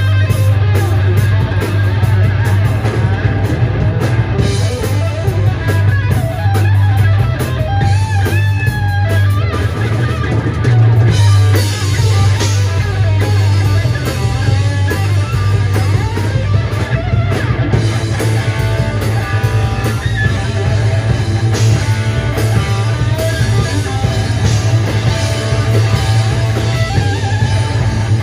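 A rock band playing live and loud: electric guitar over a drum kit, in a heavy rock style.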